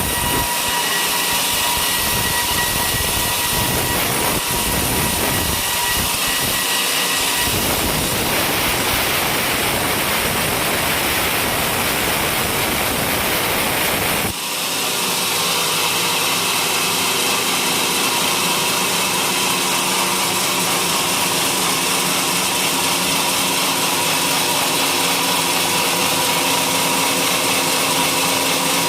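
A homemade sawmill running loudly while sawing coconut-palm timber, a continuous machine and saw noise. About halfway through, the sound dips briefly and then settles into a steadier, more even-toned run.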